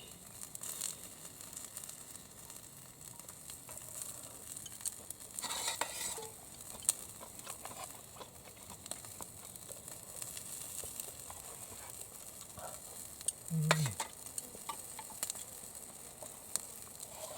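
Chicken thigh sizzling on a hot iron griddle plate, with small clicks of utensils and two louder scraping clatters, one about a third of the way in and one later on.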